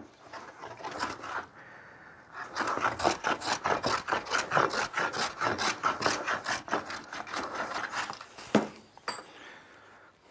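Hogging plane, a No. 4 bench plane with its blade ground to a rounded camber, taking fast, short, rasping strokes along a wooden board to remove stock quickly down towards a marked line. A single sharp knock near the end.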